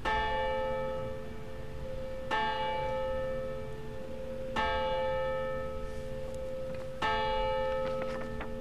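A single church bell tolling in the tower: four strikes about two and a half seconds apart, each ringing on under the next.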